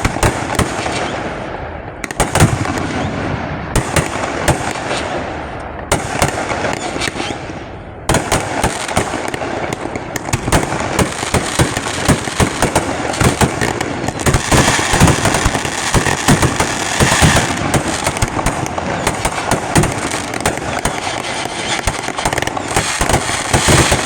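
Fireworks display: loud shell bursts about every two seconds, each trailing off in crackle, then from about eight seconds in a dense run of rapid bangs and crackling that grows busier.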